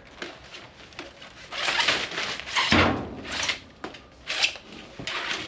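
White flexible plastic conduit (copex) scraping and rasping as it is pushed into a 16 mm plastic conduit tube, in several short shoves, with a dull knock about two and a half seconds in.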